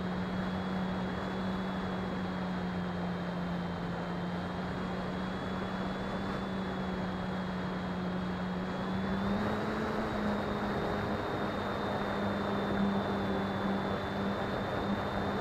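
Onboard sound of a radio-controlled FPV plane's electric motor and propeller in flight: a steady drone with a thin high whine above it over rushing wind noise. The pitch steps up slightly about nine seconds in and stays there.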